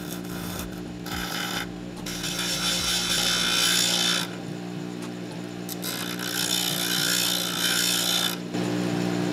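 Lotus 6-inch bench grinder running steadily while a steel chisel is pressed against its 30-grit wheel in three grinding passes, each a rasping hiss over the motor hum. The longest passes last about two seconds. This is the coarse wheel shaping the chisel's tip.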